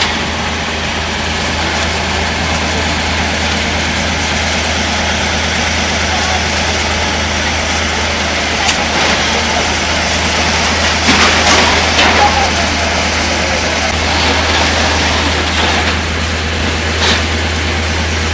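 Fire engine diesel engines running steadily, a constant low drone under a wash of noise, with a few short knocks and clatters.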